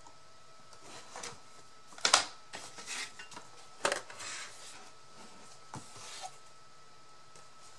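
Small hard craft pieces being handled and set down on a work surface: scattered clicks and light knocks, with two louder clattering strikes about two and four seconds in.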